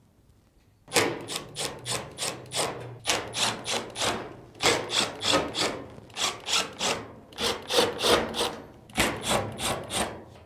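Phillips screwdriver turning out screws from a dryer's sheet-metal rear panel: a quick run of short strokes, about four a second, in groups with brief pauses, starting about a second in.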